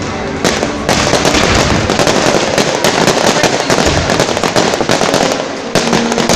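Fireworks going off overhead: a dense, rapid run of cracks and bangs from many bursting shells, setting in about half a second in.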